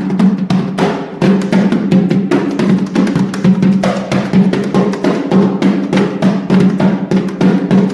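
Repique (Brazilian samba drum) played solo in a fast, dense rhythm of rapid strokes, with a strong ringing drumhead pitch under the hits.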